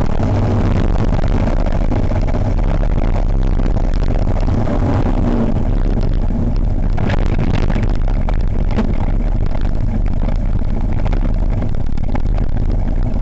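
Rush of wind on the microphone and rumble of a gravity-powered speeddown cart's small tyres on tarmac as it coasts downhill at speed, with a few rattles over bumps about seven seconds in. The rush thins as the cart slows toward the bottom.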